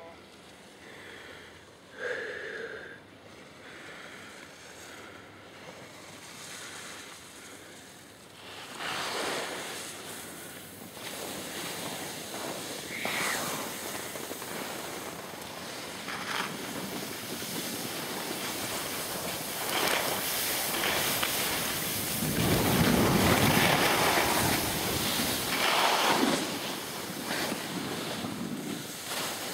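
Wind buffeting the microphone of a camera carried by a skier going downhill, with the hiss and scrape of skis on snow. The rushing noise grows from about a third of the way in and is strongest about three-quarters through.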